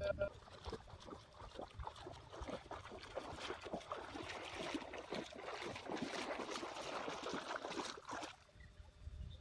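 Water splashing irregularly as a person wades through a shallow stream. The splashing cuts off suddenly about eight seconds in.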